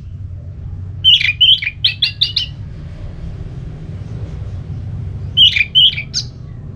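Orange-headed thrush singing in the clear, loud 'ngeplong' style: two short phrases of quick whistled notes, the first about a second in and the second near the end, over a steady low hum.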